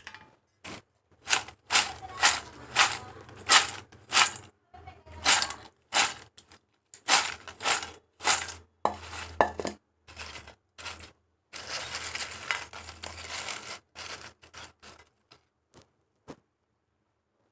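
Crisp fried potato chips crunching and rattling, a series of sharp crackles about one or two a second, running together into a denser stretch of about two seconds later on.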